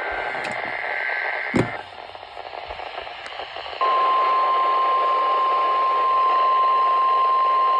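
NOAA Weather Radio broadcast through a receiver. For about the first two seconds the warbling digital SAME header data burst plays, ending with a click. Radio static hiss follows, then about four seconds in the steady 1050 Hz weather-radio warning alarm tone starts and holds, the signal that sets off alert receivers.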